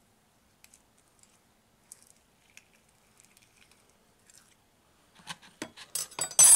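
Faint scraping and small clicks of a table knife working a hard-boiled egg loose inside a silicone egg-cooker cup, then a quick run of louder clicks and knocks from about five seconds in, the loudest near the end, as the cup is handled over a plastic bowl.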